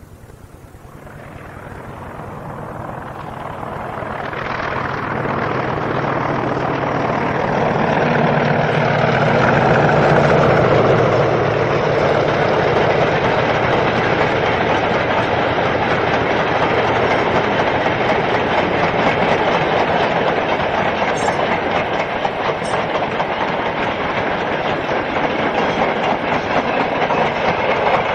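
A British Rail Class 40 diesel locomotive approaching and passing, its engine growing louder over the first several seconds and loudest about ten seconds in. This is followed by a steady clatter of the train's wheels over the rail joints.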